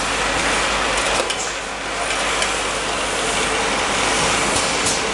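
Automatic bottle labeling line running: conveyor and belt drives giving a steady mechanical whirr and rattle, with a few faint clicks.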